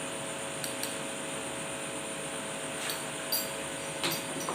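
Quiet kitchen room tone: a steady hum with a few faint light clicks scattered through it.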